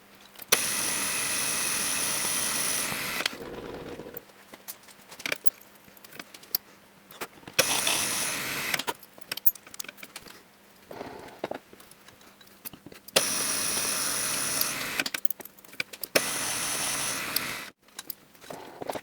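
Electric drill drilling out the rivets of a motorcycle clutch basket, run in several bursts of one to three seconds with a high whine. Between the bursts are clinks and clicks of metal parts being handled.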